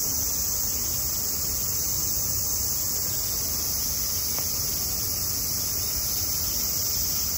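Cicadas buzzing in one steady, high, unbroken drone, over a low background rumble.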